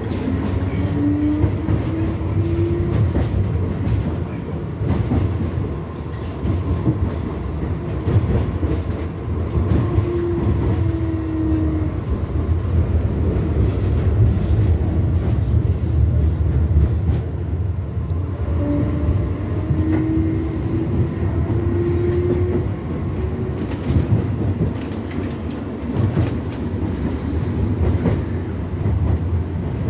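Tram in motion, heard from inside the passenger compartment: a steady low rumble of wheels on the rails with scattered knocks. The electric drive's whine glides in pitch as the tram speeds up and slows, coming and going three times.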